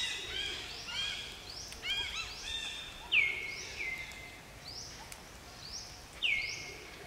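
Forest birds calling: repeated high whistled calls from several birds, overlapping. The loudest are two clear whistles, about three seconds apart, that sweep down in pitch and then hold.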